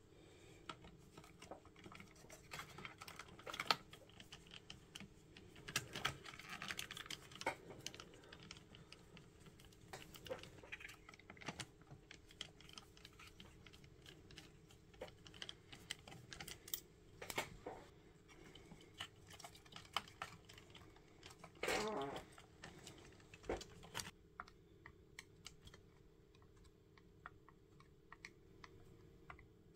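Faint, scattered clicks and taps of a screwdriver and hands handling the plastic chassis and circuit boards of a boombox. A small cluster of sharper clicks comes about 22 seconds in.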